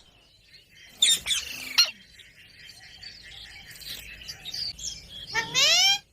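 Ringneck parrot calling: a short sharp squawk about a second in, soft chattering, then a loud rising call near the end.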